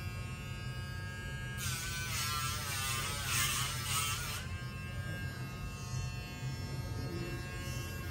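Dremel rotary nail grinder running with a steady high whine. From about 1.5 to 4.5 seconds in, it grinds a dog's toenail: a louder gritty rasp, with the motor's pitch wavering under the load.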